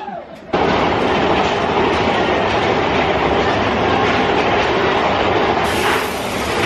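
Big Thunder Mountain Railroad mine-train roller coaster running on its track, with a loud, steady clatter of wheels and rails that starts abruptly about half a second in.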